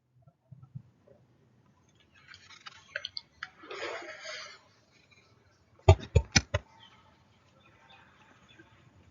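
Faint rustling and scattered small clicks, then a quick run of four sharp clicks or knocks about six seconds in.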